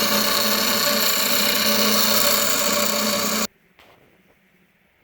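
Dremel rotary tool grinding a notch into a metal EGR delete plate so it clears the header: a steady motor whine with grinding noise that cuts off suddenly about three and a half seconds in.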